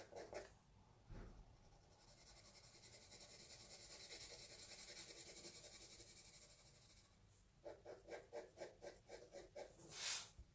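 Faint graphite pencil shading on paper: quick, rapid back-and-forth strokes making a soft continuous scratching, which turns into separate strokes about four a second toward the end, with one louder brief scrape just before the end.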